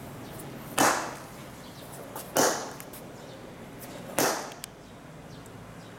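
Three blows of a Halder dead-blow hammer with yellow replaceable inserts striking stone paving, evenly spaced about a second and a half apart, each a sharp hit with a short fading tail.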